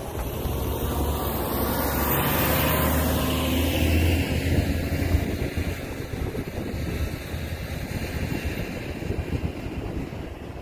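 Articulated city bus driving past close by: a low engine hum and tyre noise, loudest a few seconds in with a sweep in pitch as it goes by, then fading as it pulls away.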